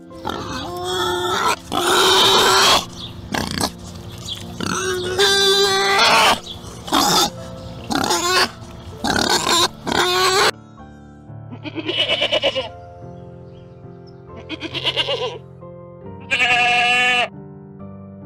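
Wild boar grunting in a rapid string of short, loud calls for the first ten seconds or so, then goats bleating three times with wavering bleats, all over steady background music.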